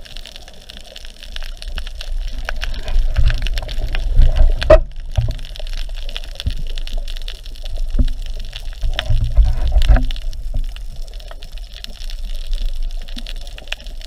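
Water sloshing and bubbling around a camera held just under the surface as a snorkeler swims close by, with scattered small clicks. There are two louder, deep surges of water, one near the middle and another about ten seconds in.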